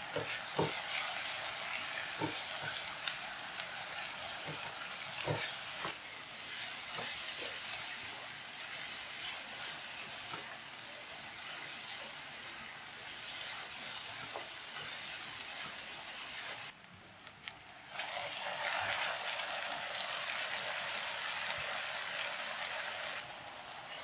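Diced tempeh in sweet soy sauce sizzling as it stir-fries in a nonstick pan, with a wooden spatula knocking against the pan several times in the first few seconds. The sizzle drops away briefly about 17 seconds in, then returns louder for several seconds.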